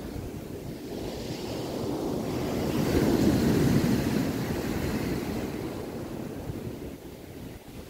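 Sea surf washing on the shore, swelling to a peak about three seconds in and then fading, with wind rumbling on the microphone.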